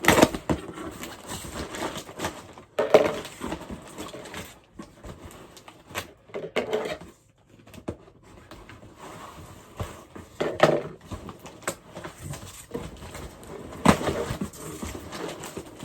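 A mailed package being torn open by hand without scissors: several separate bursts of ripping and crinkling packaging.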